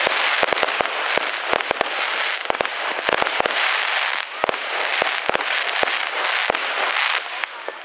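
Fireworks display: a dense, continuous crackle from glittering white star bursts, with many sharp bangs scattered through it. The crackle dies away shortly before the end.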